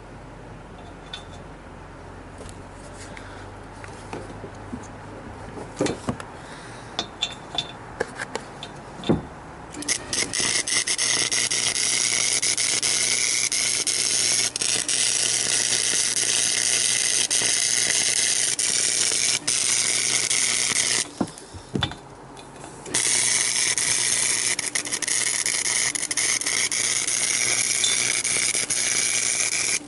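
Scattered clicks and knocks, then an aerosol spray can of primer hissing loudly in two long sprays with a short pause between them, stopping abruptly.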